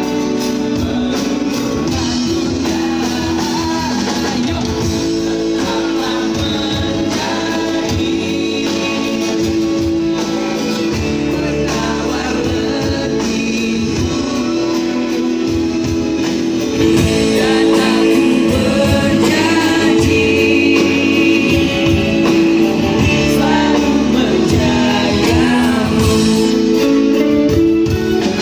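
Live band playing a song with a male lead singer, guitars and drums, getting louder a little over halfway through.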